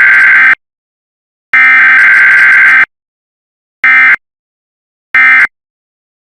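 Harsh electronic emergency alert tone in loud beeps: a long beep ending about half a second in, a second long beep of about a second and a half, then two short beeps, each separated by silence. It is the attention signal of an EAS-style emergency broadcast.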